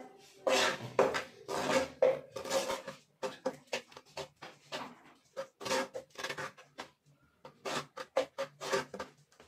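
Stainless steel spoon scraping and clinking against a non-stick kadai while stirring thick besan roasted in ghee, in quick irregular strokes, about two or three a second.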